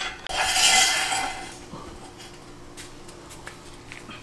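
Metal clattering and scraping with a short ringing tone, lasting about a second, then a low steady hum.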